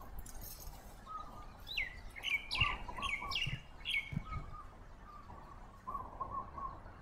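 Birds chirping: a quick run of about six sharp chirps, each sliding downward, about two seconds in, over softer short calls repeating throughout. A few soft low thuds fall in the middle.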